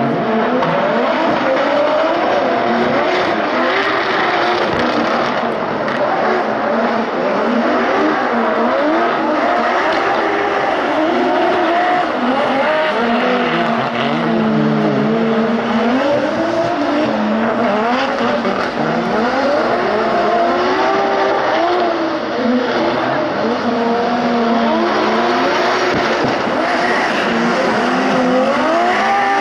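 Two drift cars in a tandem battle: high-revving engines rising and falling in pitch with the throttle, over continuous tyre squeal from the sliding cars.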